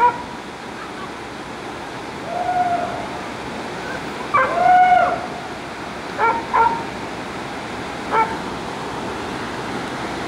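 A dog barking close by: two drawn-out howling calls, then several short sharp barks, over the steady rush of a river in the gorge.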